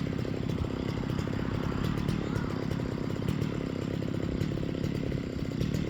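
Two-stroke chainsaw engine running steadily at an even speed.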